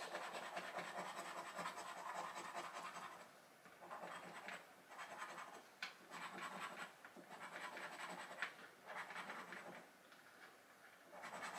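Quiet scratching of the silver coating off a scratchcard: a steady stretch of rubbing, then several shorter bouts with brief pauses between them.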